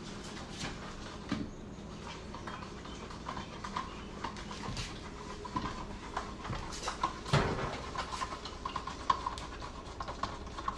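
A small kitten making faint, short mewing cries, with light clicks and knocks of handling around it.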